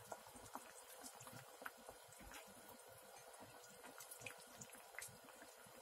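Very faint bubbling of a potato jjageuli stew boiling in a pan, with scattered small pops.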